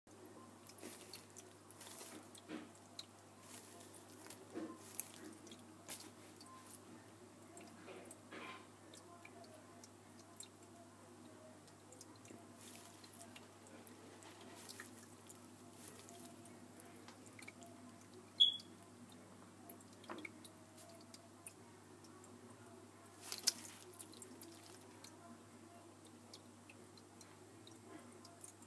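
Quiet room tone with a steady low hum and scattered small clicks and taps, and one brief high chirp about two-thirds of the way through.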